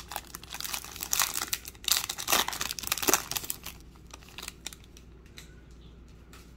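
Foil wrapper of a 2021-22 Panini Prizm basketball card pack crinkling as it is opened by hand: dense crinkling for about the first three and a half seconds, then a few light clicks as the handling dies down.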